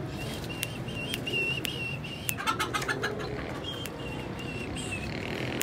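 A pigeon's wings flap in a short, rapid flutter about halfway through. Around it a small bird gives a run of short, high, repeated chirps, and there are a few sharp light clicks.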